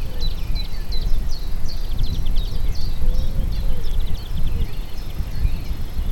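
Wind rumbling unevenly on the microphone, with a songbird calling through it in a run of short, high, falling chirps.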